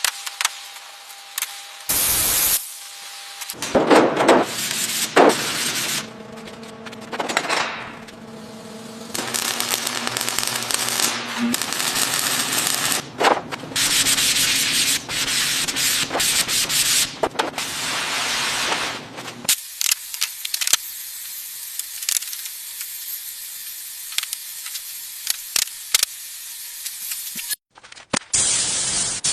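Bodywork restoration sounds cut together one after another: abrasive sanding and rubbing on metal, broken by sharp clicks, with a steady machine hum in the first half and a long even hiss later.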